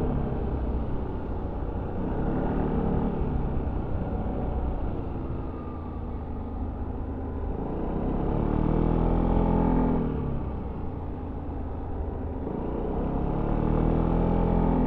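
Yamaha XMAX 300 scooter's single-cylinder engine through its stock exhaust, heard on board while riding. The revs rise and fall with the throttle: climbing about two seconds in, easing off in the middle, rising again around eight seconds and once more near the end, over a steady low rumble.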